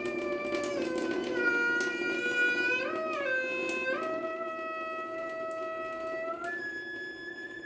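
A water tap singing: a sustained pitched tone with overtones that jumps between a few different notes every second or two, over the steady hiss of running water.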